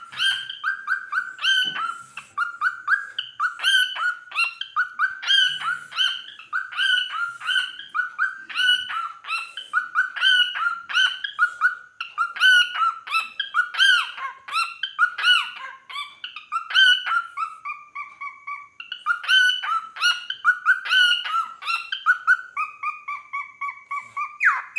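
Cockatiel chattering in a fast run of short, pitched chirps, several a second. In the second half there are a few longer drawn-out whistles, one sliding down in pitch.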